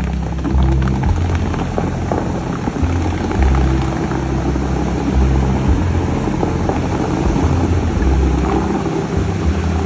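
The Dubai Fountain's water jets make a steady rushing and splashing sound over the show's music, which carries held low notes that change every second or two.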